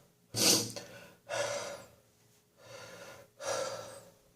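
Heavy gasping breaths from a person with a residual chesty cough after bronchitis, catching their breath after coughing. There are four breaths in and out, about a second apart, and the first is the loudest.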